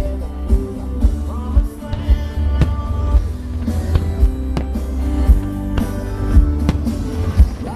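Rock music with a steady drum beat, bass and guitar, with some singing.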